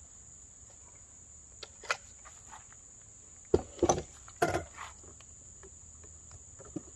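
Shotgun handled and set down on its cardboard box on a wooden table: a knock, then a loud cluster of clunks and knocks about halfway through, and a small click near the end. Insects give a steady high buzz throughout.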